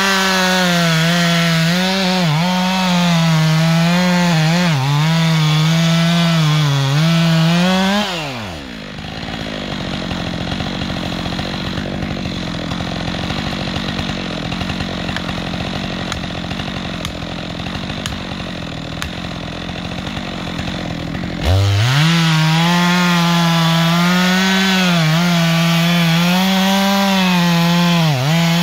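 Stihl MS 462 C-M two-stroke chainsaw cutting into beech at full throttle, its pitch dipping and wavering under load. About eight seconds in the throttle is released and it falls to a quieter idle for around thirteen seconds, then it revs up sharply and cuts again.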